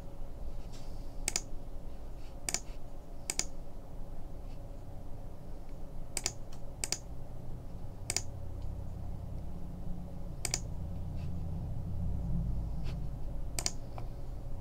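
About eight sharp single clicks, irregularly spaced a second or more apart, over a low steady hum.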